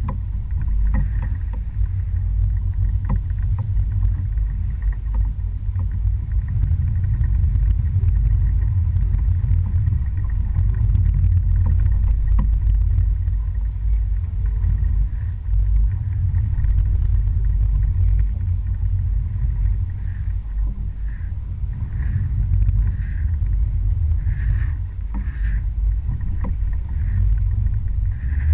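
Outboard motor running steadily, a deep, even rumble with wind and water noise over it.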